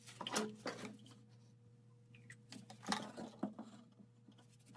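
A few light clicks and knocks from drain pipe fittings being handled, over a faint steady hum.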